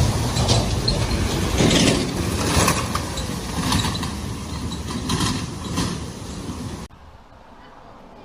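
A road vehicle driving through floodwater at a ford: engine running under a dense rumble of water surging and splashing around it in repeated waves. The sound cuts off abruptly about seven seconds in, leaving a much quieter steady noise.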